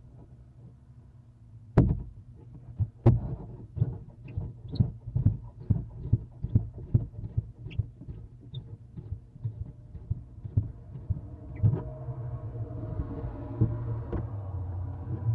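Irregular knocks and thumps on a wooden owl nest box, about two a second, with two sharper knocks at the start; near the end they give way to a steady scraping rustle, as of the box being handled or cleaned out.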